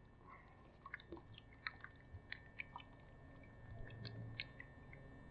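Faint, scattered small clicks and crackles of plastic being handled as a motor-oil bottle is opened for filling.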